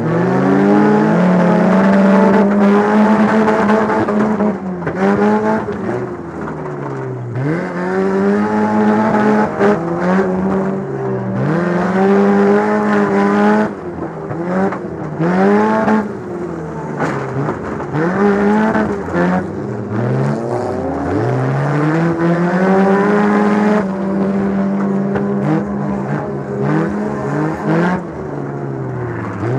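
Demolition derby car's engine revving up and dropping back over and over, its pitch swinging every couple of seconds, with a few sharp knocks along the way.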